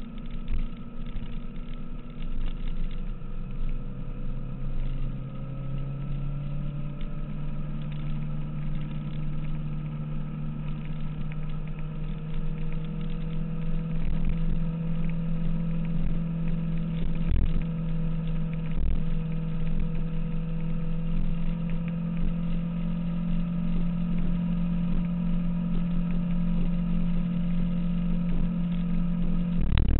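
2006 Kawasaki ZX-6R's inline-four engine running on the move, its note climbing over the first few seconds and then holding steady at cruising revs. A low rumble runs underneath, with a few short thumps in the second half.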